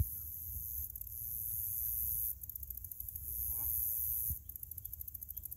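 Insects droning at a high pitch, turning into a fast, even pulsing about two and a half seconds in, over a low rumble of wind on the microphone.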